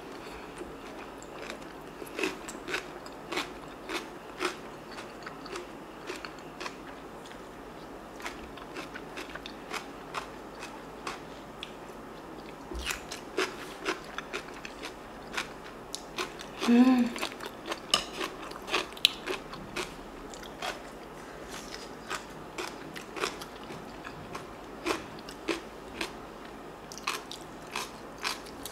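Close-miked chewing and crunching of a mouthful of bean sprout rice, with many small crisp crunches throughout. A brief hummed vocal sound comes a little over halfway through.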